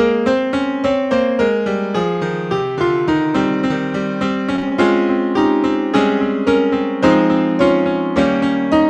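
Solo piano playing a flowing instrumental piece, notes struck several times a second.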